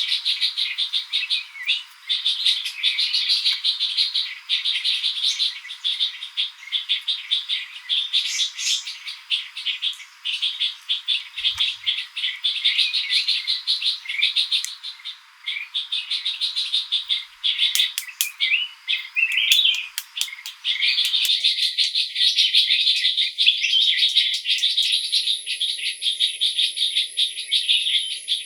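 Dense chorus of rainforest birds and insects, many rapid overlapping chirps and trills. A faint background hiss drops out suddenly about two-thirds of the way through, and a steady high-pitched insect whine starts near the end.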